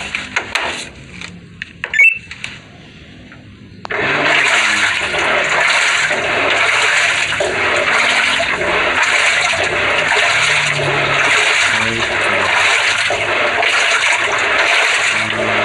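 A few light taps and a sharp click, then about four seconds in a water sound effect starts suddenly: loud, churning water with a swish repeating about once a second.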